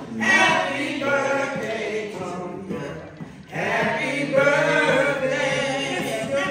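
A song with sung vocals playing, the voices held and sliding in pitch, with a short break a little past the middle.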